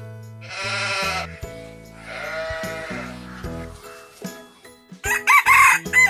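A rooster crows loudly near the end, over background music with a steady low bass line. Two drawn-out animal calls come earlier, the first about half a second in and the second around the middle.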